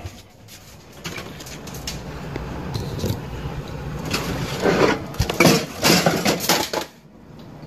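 Handling sounds as a bowl holding a plastic bag of brined fish fillets is taken out of a refrigerator, with plastic rustling over a low steady hum. The noise grows busier in the second half and drops away suddenly near the end.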